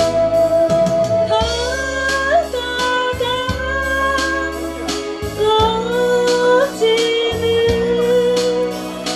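Live band music: a lead melody that slides between held notes over sustained keyboard chords and a steady drum beat.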